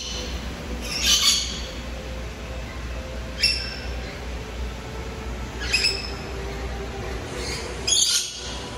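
Rainbow lorikeets giving short, high-pitched calls, one every couple of seconds, four or five in all, over a low steady hum.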